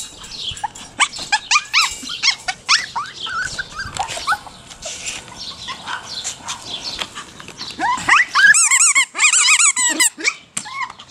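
Maltipoo puppies whining and yipping in short, high-pitched cries, coming thickest and highest about eight to ten seconds in.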